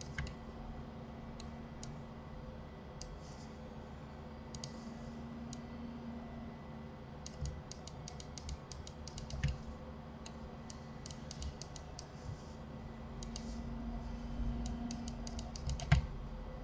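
Computer mouse and keyboard clicking in several quick runs of rapid clicks, with single clicks between them, over a faint steady hum. A louder thump comes near the end.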